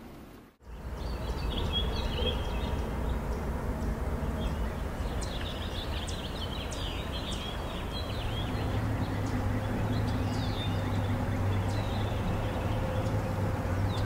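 Small birds chirping and twittering in short repeated phrases over a steady low outdoor rumble, which takes on a steady hum from about eight seconds in.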